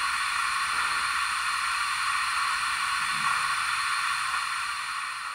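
Simulated steam hiss from an ESU LokSound sound decoder in a standing Kato N scale Union Pacific FEF-3 steam locomotive, steady and fading out near the end.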